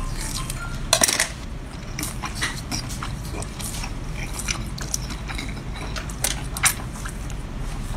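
A person biting and chewing seafood close to the microphone, with scattered sharp crackles and clicks; the loudest crunch comes about a second in.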